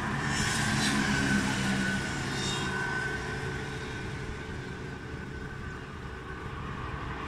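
Steady outdoor background noise with a low rumble and a faint steady high tone, fading gradually over the first few seconds.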